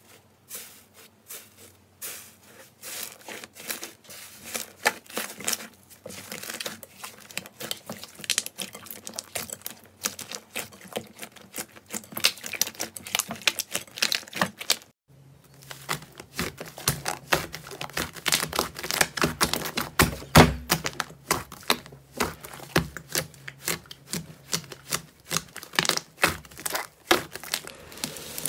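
Hands crushing and squeezing slime: the thin dried crust of an iceberg slime cracking in rapid crisp crackles, and the slime clicking and popping between the fingers. A low steady hum runs under the second half.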